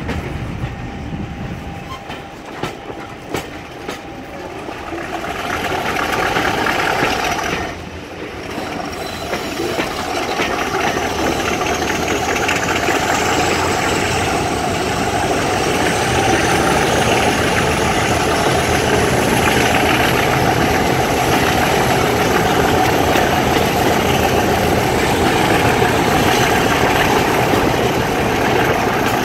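Class 50 diesel locomotive 50015's English Electric 16-cylinder engine working under power as it hauls the train, heard from an open carriage window along with wheel-on-rail noise. A few rail-joint clicks come in the first seconds, then a whine climbs slowly and steadily in pitch as the train gathers speed.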